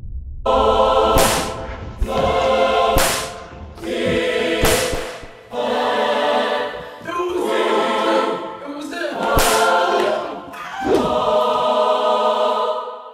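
Choral music: a choir singing long held chords, with several sudden sharp hits cutting across it, fading out near the end.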